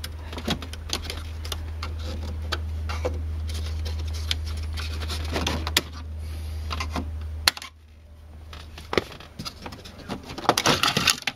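Small screwdriver prying at the plastic retaining tabs of a car's dashboard air vent, with scattered clicks and scrapes of hard plastic. A quick flurry of clicks comes near the end as the vent pops free of its clips. A steady low hum underneath cuts off suddenly a little past halfway.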